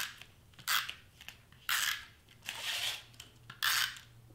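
Adhesive tape being pulled off a small hand-held roll and pressed along the edge of a foam letter, in about five short tearing strips.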